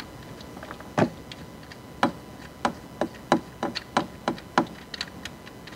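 Ratchet wrench on an alternator mounting bolt, giving about ten sharp metallic clicks at uneven intervals as the bolt is loosened.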